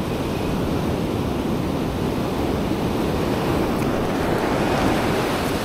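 Surf breaking and washing up a sandy beach, with wind on the microphone; the wash swells a little near the end.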